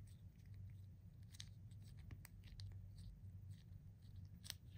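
Faint handling sounds of Play-Doh being pressed by hand into a plastic mould: soft scratches and a few light clicks of fingernails on plastic, the sharpest near the end, over a low steady hum.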